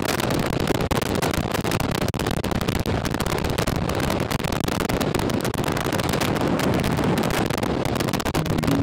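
Motorcycle riding at road speed, heard as a steady rush of wind over the microphone with engine and road noise underneath.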